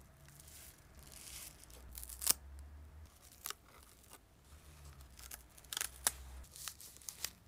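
Clear plastic protective wrap rustling and crinkling as it is peeled off a doll's hand and face, with several sharp crackles.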